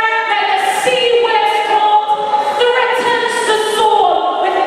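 A group of voices singing together, a choir, in held notes that move from pitch to pitch.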